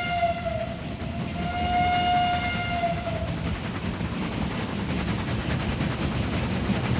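Steam locomotive whistle blowing twice, a blast that ends about half a second in and a longer one of about two seconds that sags in pitch as it stops, over the steady rumble of a moving train.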